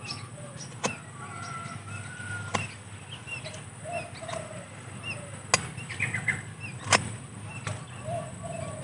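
Sharp snips of a hand-held bonsai cutter biting into sancang wood, about five cuts spaced a second or more apart, the loudest two a little past halfway, as a saw cut on the trunk is trimmed clean. Birds call in the background.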